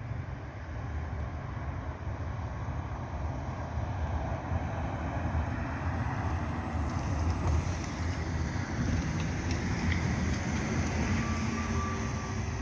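Articulated city bus driving past close by, its tyre and drive noise swelling over the second half as it nears, over a steady low rumble.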